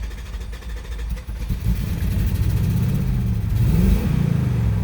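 Jeep Commander's 4.7-litre V8 running on a little throttle, getting louder partway through, with the revs rising and falling once near the end. The engine is misfiring (code P0300) and stalls unless the gas is held.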